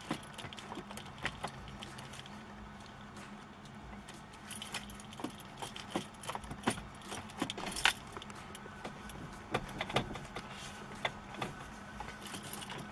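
A bunch of keys jangling with repeated sharp clicks as the key is worked in the VW Crafter's ignition switch, which is faulty: the steering stays locked and the engine does not crank. A steady low hum runs underneath.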